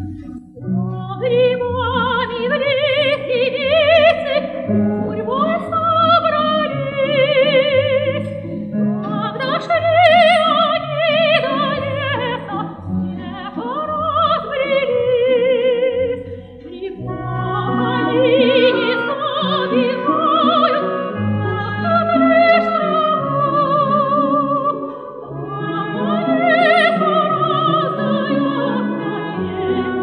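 A soprano sings a Russian folk song in an operatic style with wide vibrato, accompanied by an orchestra of Russian folk instruments. Her voice comes in about a second in and carries on in long phrases with short breaths between them.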